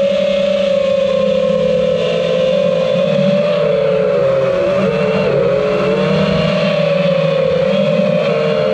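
Brushless motors and propellers of an iFlight Titan DC5 5-inch FPV quadcopter whining steadily while cruising. The pitch wavers with the throttle and dips and recovers about halfway through.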